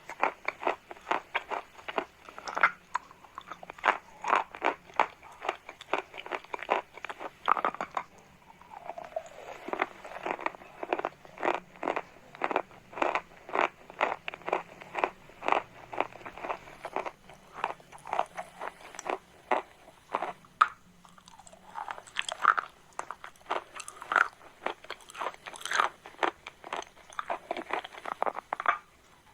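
Chalk being bitten and chewed: a long run of crisp crunches, several a second.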